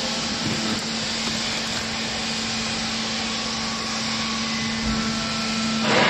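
Vertical hydraulic baler's electric motor and pump running steadily: a constant low hum over an even hiss. Plastic sheeting rustles near the end.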